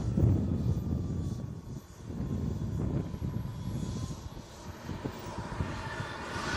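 Small model-jet turbine running at taxi power, a thin high whine. It is almost buried under a heavy, uneven low rumble of wind buffeting the microphone. Near the end the turbine whine grows stronger.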